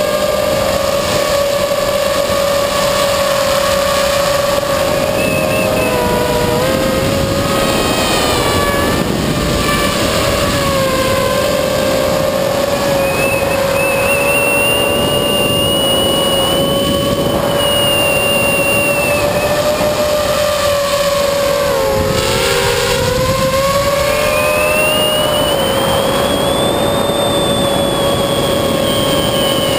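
Electric motors and propellers of a small FPV drone on a 3S LiPo pack, heard close up through its onboard camera: a steady, loud whine made of several tones. Its pitch dips and recovers with throttle changes about a quarter of the way in and again about three-quarters in.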